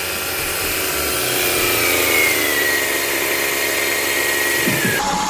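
Maruti Alto's petrol engine running at a slow idle just after starting, with diesel in the crankcase as a flush. It runs steadily with a high whine that slowly falls in pitch, and near the end the sound changes to a lower steady tone.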